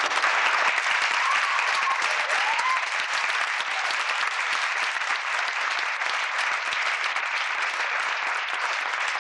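Audience applauding: many hands clapping, breaking out all at once and holding steady.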